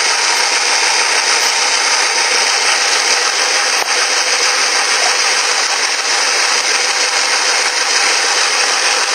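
Electric mixer with spiral dough hooks running steadily at speed, kneading flour, cream, salt and water into a dough.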